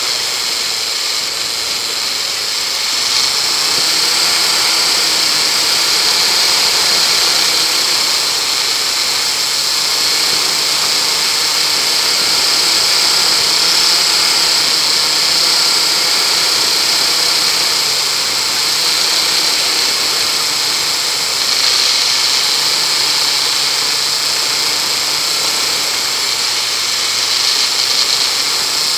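Land Rover engine running as it drives slowly along a rough, wet woodland track, its note rising and falling with the throttle, under a steady high hiss.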